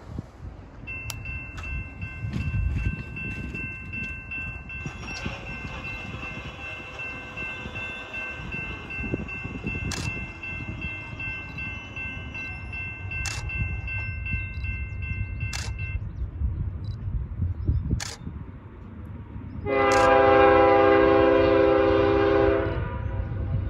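Approaching freight train's low rumble, with a steady high ringing tone for the first two-thirds. Near the end the lead locomotive, a BNSF GE Evolution-series (GEVO) unit, sounds its air horn in one long blast of about three seconds.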